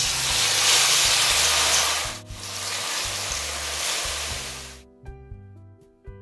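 Strips of beef sizzling loudly as they deep-fry in hot oil in a wok, the hiss breaking briefly about two seconds in, then going on and stopping abruptly about five seconds in, over background music.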